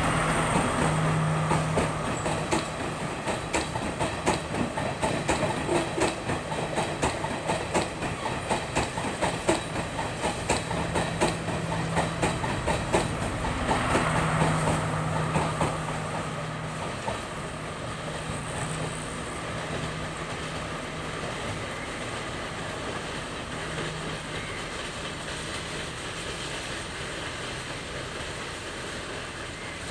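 Train running past on the tracks, its wheels clacking quickly and evenly over the rail joints, loudest about halfway through. It then settles into a steadier, slowly fading rumble.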